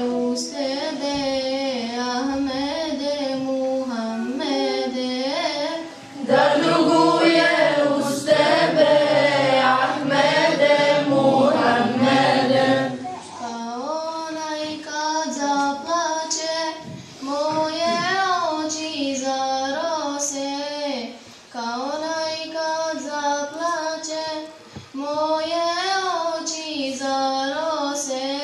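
Girls singing an ilahi, an Islamic devotional song, unaccompanied into a microphone, with ornamented, wavering melody lines. The singing grows louder and fuller for several seconds in the middle, then returns to a lighter line.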